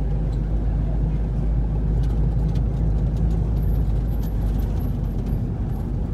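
Steady low rumble of a car's engine and tyres, heard from inside the cabin while driving along the road.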